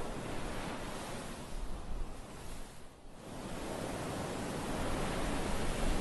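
Small waves breaking and washing up a sandy beach: a steady rush of surf with some wind noise, dipping briefly about halfway through.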